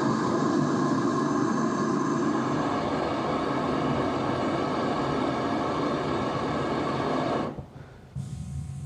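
Handheld gas torch burning with a steady hiss as it lights the kindling in a wood stove; it shuts off about seven and a half seconds in, leaving a quieter stretch with a few light clicks near the end.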